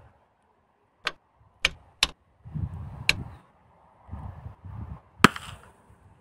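Four sharp clicks, then about five seconds in a single loud pop with a short noisy tail as a TAGinn Kick Shell KS-5.0 gas shell fires an airsoft grenade from a 3D-printed launcher.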